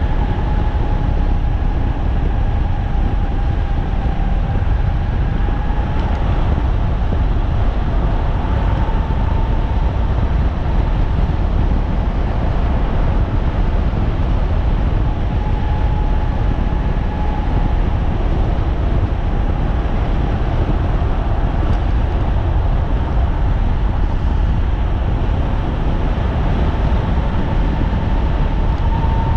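A 3,000-watt electric bike riding at speed: steady wind rumble on the microphone with a thin, high motor whine that drifts slightly in pitch and fades in and out.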